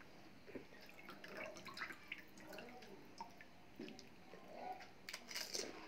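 Faint liquid sounds and drips as a crisp pani puri shell is dipped into a steel bowl of spiced green water and lifted out. Short clicks are scattered through, with a louder cluster of crackly bursts about five seconds in.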